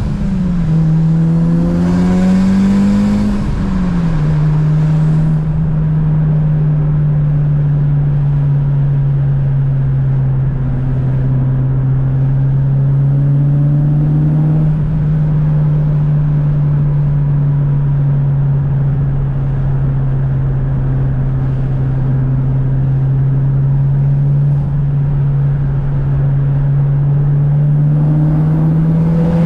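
Tuned Mitsubishi Lancer Evolution VIII's turbocharged four-cylinder engine under way: the engine note climbs and then falls away about four seconds in, holds a steady drone for most of the time, and starts climbing again near the end.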